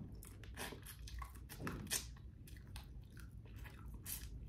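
Faint chewing and wet mouth clicks from eating crab leg meat pulled from the shell, with scattered sharp smacks.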